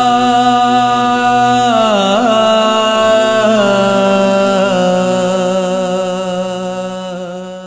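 Male voices chanting soz, an unaccompanied Urdu elegy for Muharram, in long held notes that step down in pitch a few times and fade away at the close of the piece.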